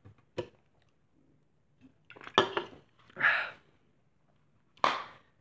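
Light clicks and knocks from a Copenhagen snuff can being handled: one sharp click near the start, a cluster of sharper knocks a little past two seconds in, then two short rushing sounds.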